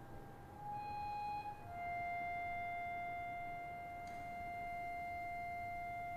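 Slow instrumental music: a short held note of a bowed string instrument, then one long sustained note.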